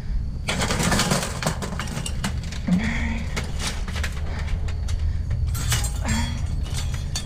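Scrap metal being handled and pulled from a pile: a run of clanks and knocks, with a scraping rattle about a second in, over a steady low rumble.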